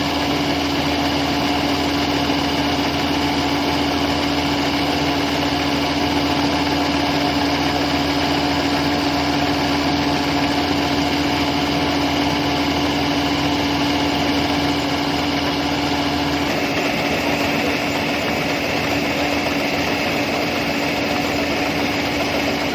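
Rice combine harvester running steadily as it works, a constant engine hum with a higher whine over it. About two-thirds of the way in, the low rumble thins and the whine shifts slightly.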